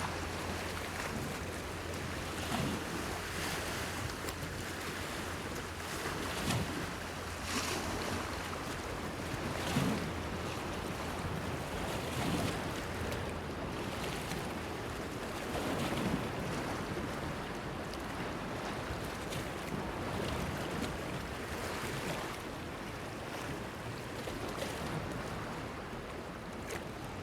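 Small sea waves washing and splashing against a stone breakwater, in irregular surges every second or few. A low steady hum sits under the waves and fades out about halfway through.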